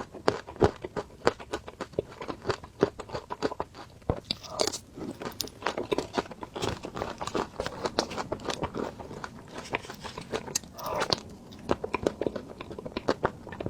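Close-miked chewing of crispy ice cream: a fast, dense run of crunches as the crisp shell breaks between the teeth, with a few softer wet chewing stretches.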